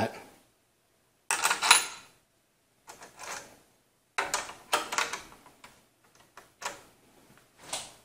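Small metal heatsink mounting pieces clinking and clicking against the metal mounting bracket as they are set in place and turned by hand. A sharp clink about one and a half seconds in is the loudest, followed by several lighter clicks and taps.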